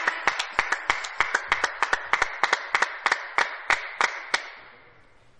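Spectators clapping in unison at a steady beat of about three claps a second, fading and stopping about four and a half seconds in.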